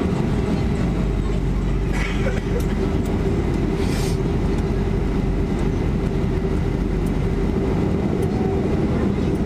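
Cabin noise of a Boeing 737-400 taxiing: the steady drone of its CFM56-3 engines at low power, a low rumble with a steady hum. A brief hiss about four seconds in.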